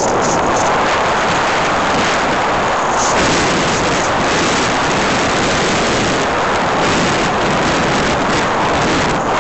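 Loud, steady rush of wind buffeting the microphone, mixed with the drone of a light aircraft in flight.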